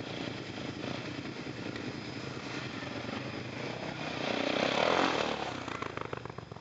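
Quad bike (ATV) engines running. One quad rides up and passes close by, growing louder to a peak about five seconds in and then fading, while the others run in the background.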